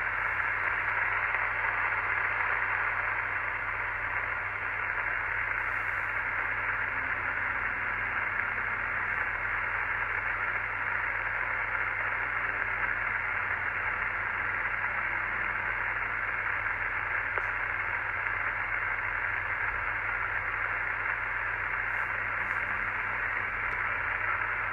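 Kenwood TR-9000 2 m transceiver in SSB receive with no station on the frequency, its speaker giving a steady band-limited hiss. A low steady hum runs underneath.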